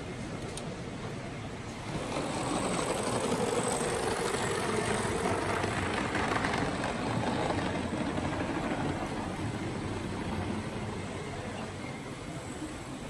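Large-scale model train running on the track: a steady rumble of wheels on rail that swells about two seconds in, stays up for several seconds as it passes close, then eases.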